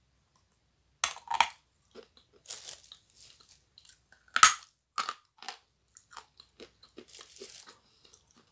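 Teeth biting into a very hard lump of "goat milk" edible chalk: two sharp crunches about a second in, the loudest snap about four and a half seconds in, then chewing with smaller crunching clicks.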